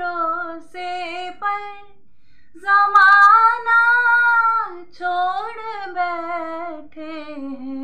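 A woman singing a Hindi Krishna bhajan solo, with no instrument heard: long, drawn-out wavering notes, the loudest a high held note about three seconds in.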